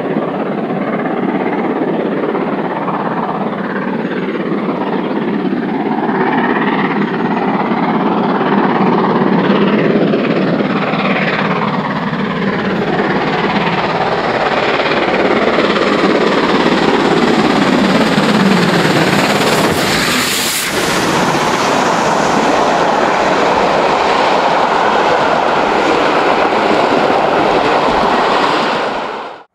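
Two GWR 4-6-0 steam locomotives, a Hall and a Castle, heading a passenger train: their running grows nearer, they pass close by about twenty seconds in, and then the coaches roll past on the rails.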